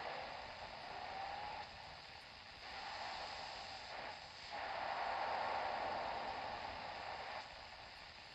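Philips D1835 portable radio hissing with static as its dial is tuned across a band, a whistling tone gliding upward in the first second or so. The hiss rises and falls in steps every second or two as the tuning moves.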